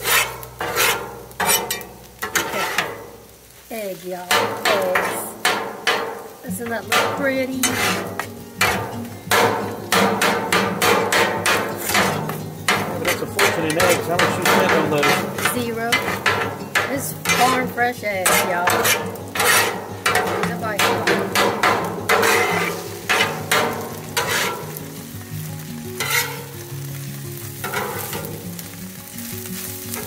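Metal spatulas scraping and clacking on a flat-top griddle, chopping and turning scrambled eggs in repeated quick strokes, over the steady sizzle of egg frying on the hot steel.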